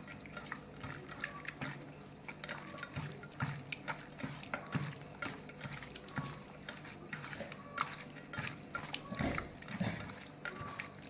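A hand mixing raw chicken pieces into a wet marinade in a steel bowl: soft, wet sounds as the pieces are squeezed and turned, with many small irregular clicks.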